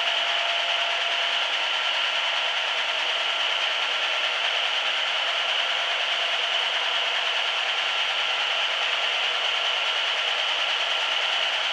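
Hanta Duster 300 rug dusting machine running steadily as a rug passes through it: an even mechanical noise with a faint constant hum.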